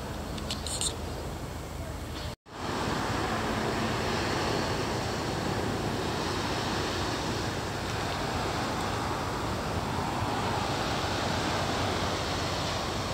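Steady outdoor background noise, an even rushing hiss, that drops out to silence for a moment about two and a half seconds in and returns louder. A few faint high chirps sound in the first second.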